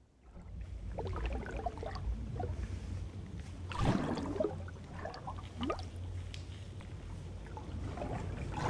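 Underwater bubbling: bubbles gurgling over a steady low rumble, with a louder rush of bubbles about four seconds in and again near the end.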